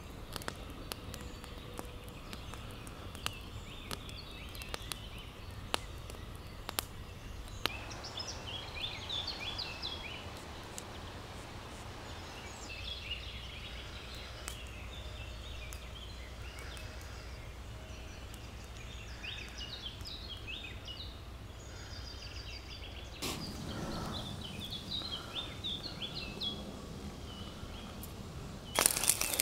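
Songbirds chirping in short, bright phrases over a faint, steady low rumble. There are scattered sharp ticks in the first few seconds, a brief rustle about 23 seconds in, and a loud crinkling right at the end.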